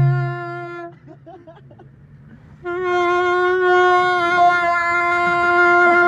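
A wind instrument blowing steady held notes: one short note at the start, then about a second and a half of near quiet, then one long held note at the same pitch lasting over three seconds.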